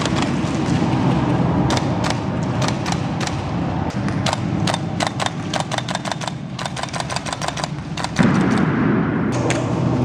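Airsoft guns firing in a game: scattered single shots, then a rapid full-auto burst lasting about three seconds.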